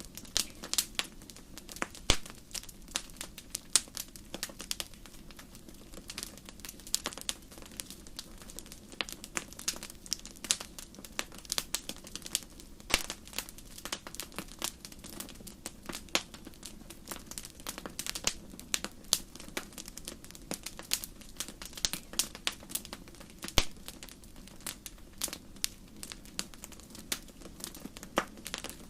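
Wood campfire crackling: irregular sharp pops and snaps over a steady low hiss of burning, with a few louder pops now and then.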